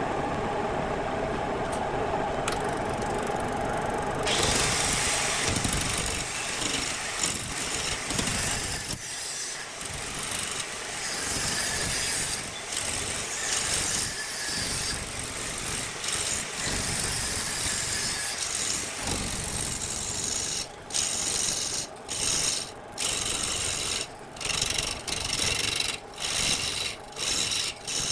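Wood lathe running, with a turning tool cutting into the spinning wood blank in a steady scraping rasp. About four seconds in the cut bites and turns brighter. From about twenty seconds on, the tool goes on and off the wood in short passes, roughly one and a half a second.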